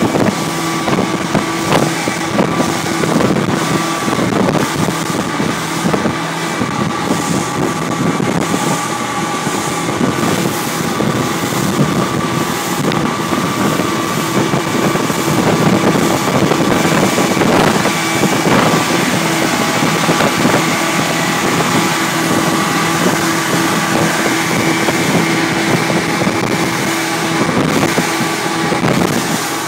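Rigid inflatable boat's engine running steadily at speed, with a steady drone, over the rush of water against the hull and wind buffeting the microphone.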